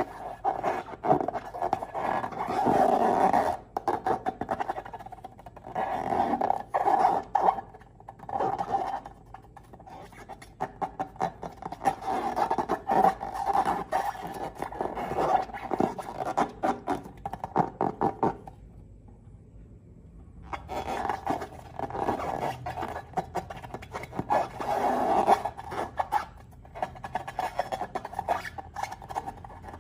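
Wet squelching and sputtering from slime and air being squeezed out of balloons, coming in rough crackly bursts of a few seconds each, with a short break about two-thirds of the way through.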